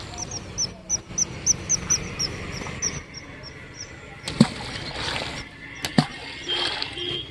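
Balls of flour-and-bran groundbait plopping into river water, two heavy splashes about a second and a half apart, in the second half. Before them a bird calls in a quick series of short high chirps, about three a second.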